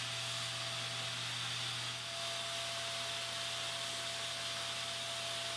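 Rockler HVLP finishing sprayer running steadily while spraying primer: an even rush of turbine air and atomised spray, with a faint steady whine under it.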